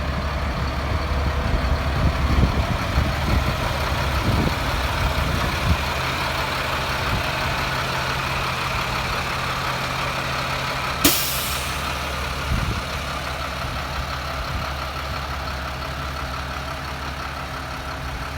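Truck's Caterpillar 3126 diesel engine running steadily. About eleven seconds in there is one sudden sharp sound with a short hiss trailing after it.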